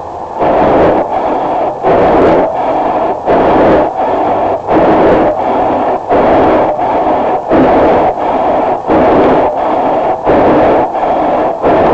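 Windshield wipers sweeping back and forth over a wet, icy windshield, with a scraping noise on each stroke, about two strokes every one and a half seconds, heard from inside the car.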